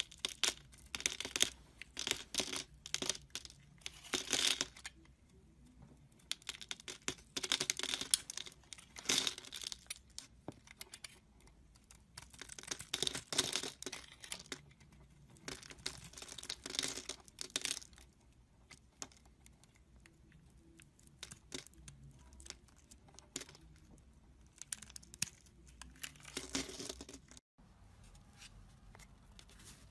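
Utility knife blade cutting and scraping through a bar of soap scored into small cubes, with dry crackling crunches as the pieces break off. The strokes come in irregular runs and stop a couple of seconds before the end.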